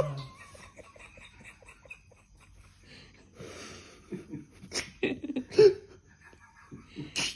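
People laughing softly and breathily, with louder bursts of giggling about five seconds in and a short sharp burst near the end.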